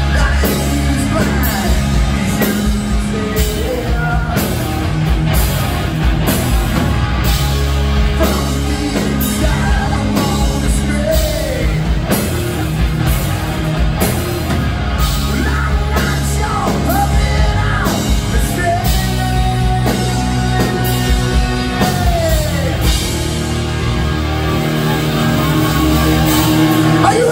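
A rock band playing live: distorted electric guitars, bass guitar and a drum kit keeping a steady beat, with the echo of a large hall.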